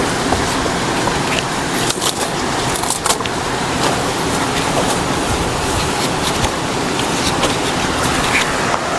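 Steady rushing of a waterfall, with a few short clicks about two, three and seven seconds in.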